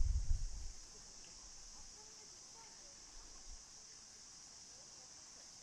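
Steady high-pitched drone of insects in the background, with a low rumble on the microphone that dies away within the first second.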